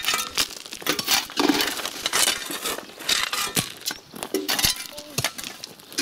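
Shovel blade scraping and digging into crushed stone, with stones clinking and clattering as they are tossed into buckets. It comes as a string of irregular crunches and sharp clinks.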